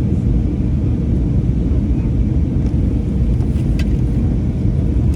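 Steady low rumble of an Airbus A320neo's Pratt & Whitney geared turbofan engines and airflow, heard inside the passenger cabin.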